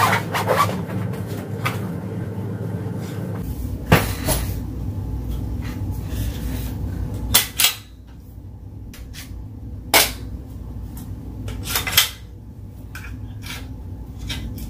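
Handling noise from a wooden-stocked .22 rifle being drawn from its soft case and turned over in the hands: a few scattered knocks and clicks, over a steady low hum.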